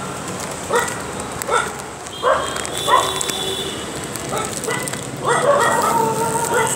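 Street dog barking in short, sharp barks, about six, spaced under a second apart.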